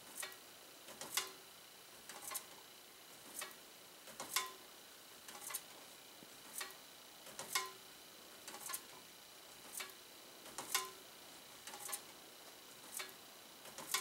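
Slowly turning box fan's blades grazing a foil-covered paper tag contact, giving a sharp tick about once a second with fainter ticks between. The fan is running at reduced voltage from a variable autotransformer.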